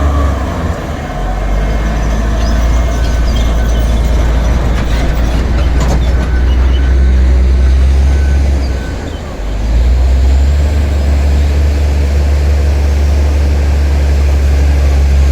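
Bulldozer's diesel engine running hard with a deep, steady hum, easing off briefly about a second in and again around nine seconds. Some clanks around five to six seconds in, with faint repeated beeping midway.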